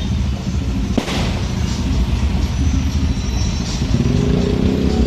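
Steady low rumble of a street parade's motor vehicles and loudspeakers, broken by one sharp firecracker bang about a second in. Music with held notes comes in near the end.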